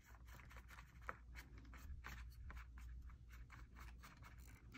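Faint paintbrush strokes on a plastic water bottle, a quick run of soft brushing scratches, several a second.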